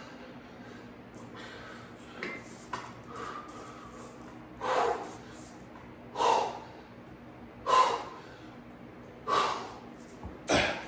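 A man's forceful breaths, one sharp exhale with each rep of chest flies. There are a few light ones early, then about every second and a half, five strong ones.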